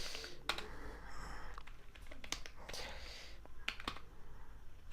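Computer keyboard keystrokes: scattered, irregular clicks as code is typed.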